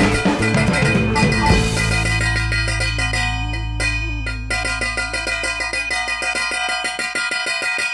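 Background music: a Latin-style track whose drum beat drops out about a second and a half in, leaving a held low note under fast, even percussive ticking.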